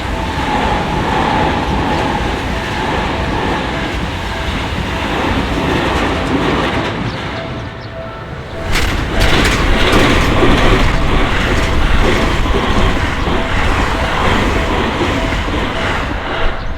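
A train running past a level crossing while the crossing's warning bell rings in a steady, even rhythm. About nine seconds in, the train's running noise steps up suddenly and gets louder and harsher. The bell stops just before the end.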